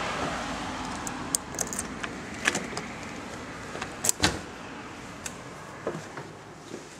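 Lever-handled exterior door being opened: a run of sharp metallic clicks from the handle and latch, then two louder knocks about four seconds in as the door swings open, with a few lighter clicks after. A steady outdoor noise fades away early on.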